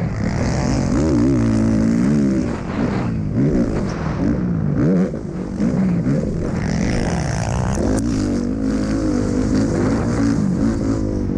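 Onboard sound of a four-stroke motocross bike engine being ridden hard, its revs swooping up and down again and again as the throttle is opened and rolled off through turns and over jumps.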